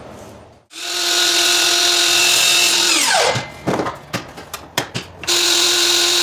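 Power miter saw cutting crown molding: the motor runs up under a second in and runs steadily, then is released about three seconds in and spins down with a falling whine. A few clicks and knocks follow, and the saw starts again about five seconds in.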